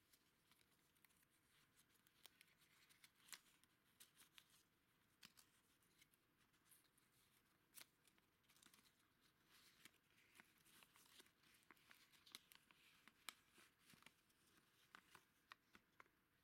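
Faint crackling and rustling of an old folded paper receipt and a small cardboard box being handled and unfolded, a quick run of small crinkles and clicks.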